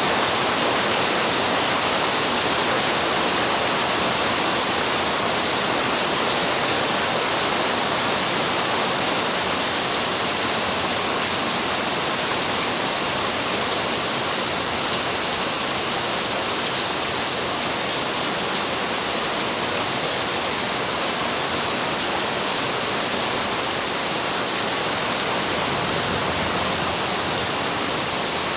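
Rain falling steadily: an even, unbroken hiss with no single drops or thunder standing out.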